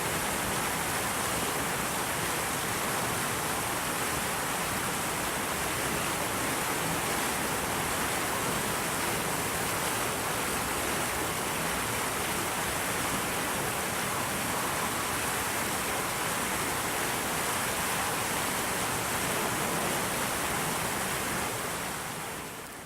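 Steady, even rushing noise, like water falling or streaming, fading down near the end.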